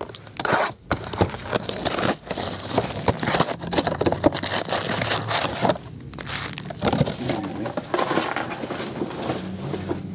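Sealed trading-card boxes being unwrapped and handled: plastic shrink wrap crinkling and tearing, with cardboard boxes scraping and knocking on the table.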